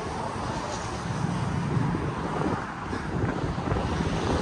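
Wind buffeting the microphone: a rough, fluctuating rumble.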